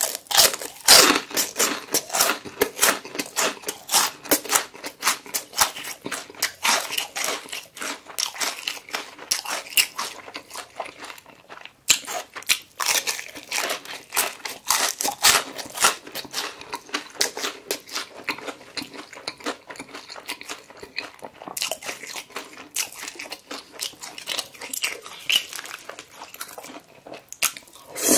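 Crunching and chewing of crispy fried chicken: a close, dense run of crisp crunches as the battered crust is bitten and chewed, with a short pause about twelve seconds in.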